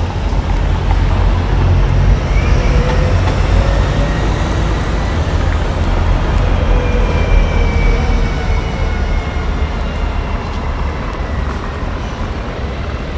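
City street traffic led by a double-decker bus driving past close by: a steady deep rumble, with a faint whine drifting in pitch through the middle.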